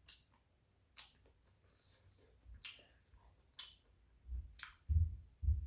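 Mouth sounds of someone chewing shrimp tteokbokki: soft wet clicks and smacks about once a second, with a few low thumps near the end.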